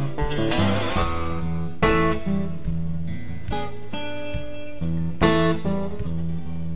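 Acoustic guitar music: strummed chords that ring on, with sharp fresh strums about two seconds in and again a little after five seconds.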